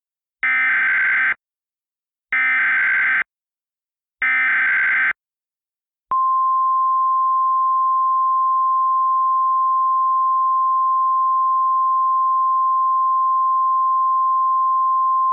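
Emergency Alert System SAME header: three identical bursts of about a second each of screechy digital data tones, a second apart, then about six seconds in a steady single-pitch NOAA Weather Radio warning alarm tone starts and holds. These tones open a new emergency alert message.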